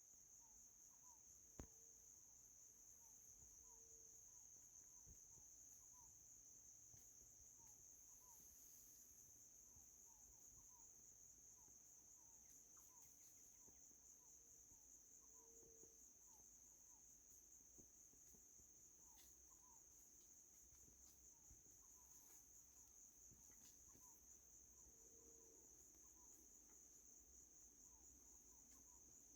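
Faint, steady high-pitched insect chorus, with soft short chirps repeating irregularly underneath and a single sharp click about a second and a half in.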